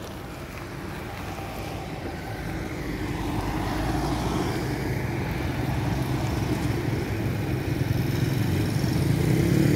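Hino Profia F20C dump truck's diesel engine running as the truck drives along the road, growing steadily louder and rising in pitch near the end. A motorcycle passes close by late on.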